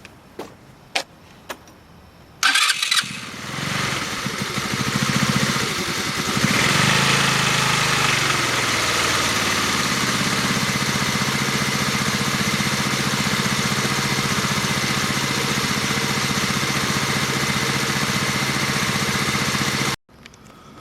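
A few sharp clicks, then the 2012 Taotao ATM150-A Evo scooter's 150cc GY6 single-cylinder four-stroke engine is started a little over two seconds in. It revs unevenly for a few seconds, then settles into a steady idle, run to circulate freshly added oil before the level is rechecked. The sound stops abruptly near the end.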